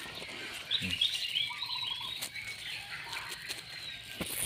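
Small birds chirping and twittering, with a brief trill about a second and a half in and a few short clicks.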